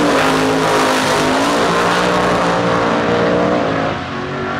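Two pro street muscle cars launching down a drag strip side by side, their engines at full throttle, the pitch climbing and dropping back at each gear change. The sound falls off about four seconds in as the cars pull away.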